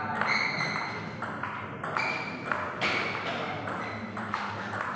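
Table tennis ball being hit back and forth in a rally: a steady run of sharp clicks as the celluloid ball strikes the rubber bats and bounces on the table, each with a brief ring.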